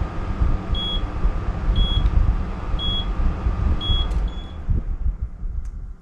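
5,000 BTU window air conditioner running off an inverter with a steady hum, while an electronic alarm beeps about once a second, five times, the battery running flat. Near the end the air conditioner winds down and stops as the 12 V 100Ah LiFePO4 battery dies.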